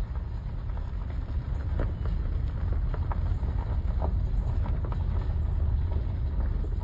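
Wind buffeting the microphone: a steady low rumble that swells slightly about two seconds in, with a few faint short ticks above it.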